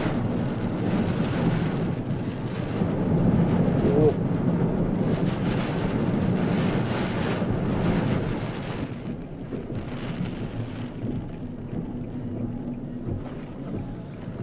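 Typhoon winds gusting hard over the microphone, a loud rushing noise that surges and eases. It is strongest for several seconds, then lets off somewhat after about nine seconds.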